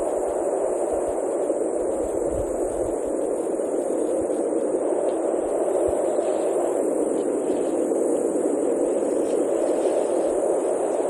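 Steady, even static-like noise: a dull rush in the middle range with a thin high hiss above it, unchanging throughout, with no distinct splashes or calls standing out.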